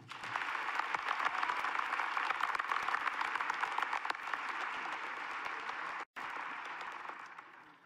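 Large audience applauding, a dense spread of many hands clapping that starts at once and dies away over the last second or so, with a split-second break in the sound about six seconds in.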